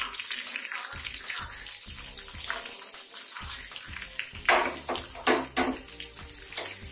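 Butter sizzling in an aluminium pressure cooker as chopped onions are dropped into it, with a few louder crackling bursts of sizzle just after the middle. Background music with a steady beat underneath.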